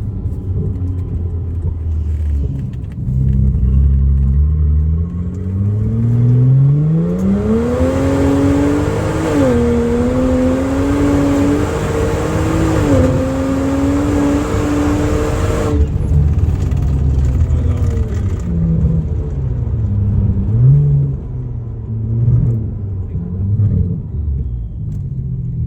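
BMW N54 twin-turbo straight-six, an engine with a misfire, pulling hard under acceleration. The engine note climbs for several seconds and holds high with two brief dips, with a loud rush of air while under power. About sixteen seconds in the throttle is lifted and the note drops away.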